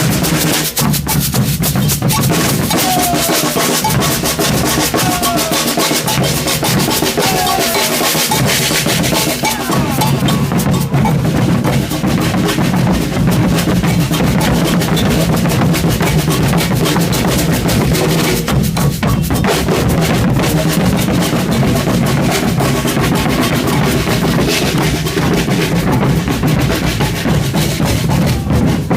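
An Afro-Brazilian street-percussion group, batucada style, drumming a steady, dense rhythm on massed drums, with deep bass drums underneath.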